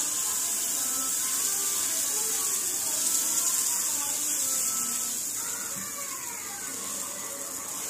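Chilla batter of buckwheat and water-chestnut flour sizzling steadily on a hot tawa greased with a few drops of ghee, as it is poured and spread with a steel ladle.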